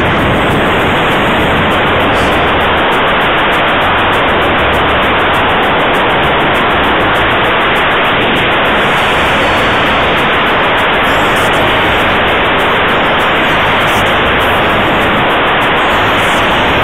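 Loud, steady rushing hiss of airflow over the microphone of a camera riding on a radio-controlled scale glider in flight.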